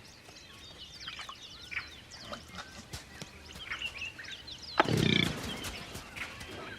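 Small birds chirping and twittering, with one loud, harsh animal call a little under five seconds in that starts sharply and falls in pitch.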